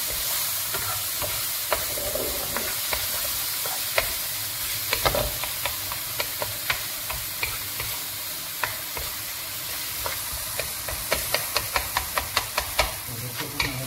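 Diced tomato sizzling in oil in a non-stick frying pan as it softens, stirred with a wooden spoon that taps and scrapes against the pan. Near the end comes a quick run of taps.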